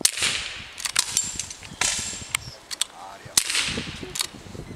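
Air-rifle shots: three loud, sharp cracks about a second and a half apart, each with a short hissing tail. Fainter sharp clicks come between them.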